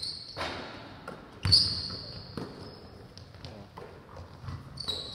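A korfball being caught and passed, a series of sharp thumps with the loudest about a second and a half in, together with high squeaks of sports shoes on the hall floor. Everything echoes in a large sports hall.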